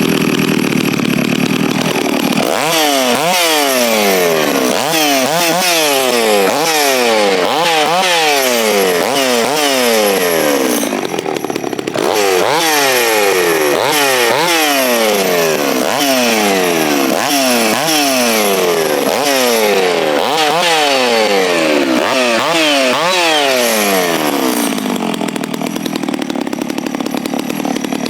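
Stihl MS660 two-stroke chainsaw running, its throttle blipped over and over so the engine revs up and drops back about once a second, with a short idle in the middle before it settles back to idle near the end.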